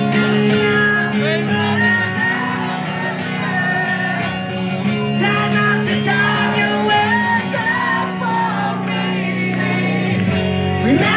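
Live rock band playing loud: electric guitars hold sustained chords under a wavering lead melody.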